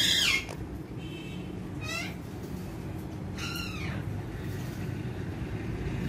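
Indian ringneck parakeets giving three short calls: a loud one right at the start, then fainter ones about two and three and a half seconds in. A steady low hum runs underneath.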